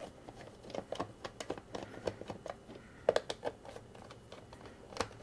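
Phillips screwdriver backing small screws out of a plastic electronics module case: a run of faint, irregular clicks and ticks, with a few sharper ones about three seconds in and near the end.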